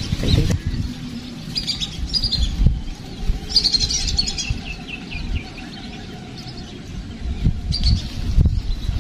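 Birds chirping and twittering in several short bursts, over a low, uneven rumble.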